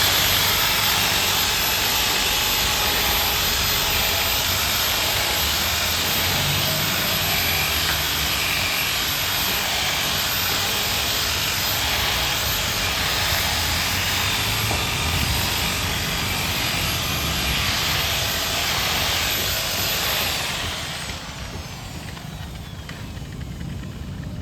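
Handheld electric power tool running at high speed with a steady high whine. It is switched off about 20 seconds in, and the whine falls away as it spins down.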